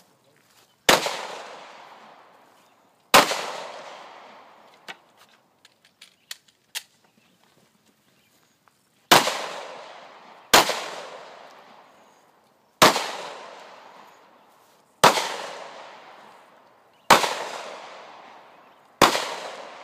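Pistol shots fired one at a time, eight in all, mostly about two seconds apart with a longer pause after the second shot; each shot is sharp and trails off in a long echo. A few faint clicks come during the pause.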